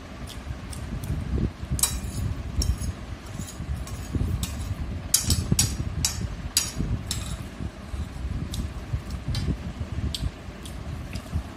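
Metal spoon clinking and scraping against a ceramic plate in irregular sharp taps while eating fried rice, busiest around the middle, over a steady low hum.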